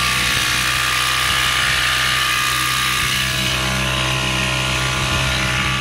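Small Mariner outboard motor running at a steady speed, its engine note holding an even pitch.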